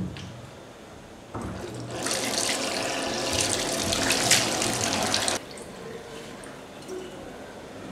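Water running for about three and a half seconds, starting softly, growing fuller, then cutting off suddenly.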